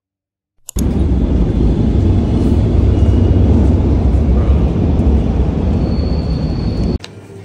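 Paris Métro underground rumble: a loud, steady low rumble with hiss, typical of a train running through the station. It starts after a brief silence and cuts off suddenly near the end.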